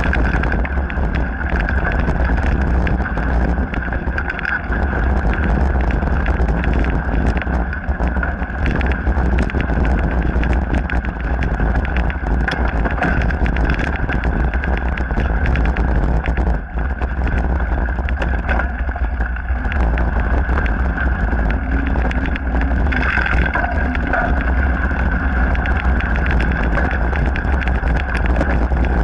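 Mountain bike ridden over a dirt and gravel trail, picked up by an action camera riding along: continuous rattling and clattering of the bike and tyres over the rough surface, over a steady low wind rumble on the microphone.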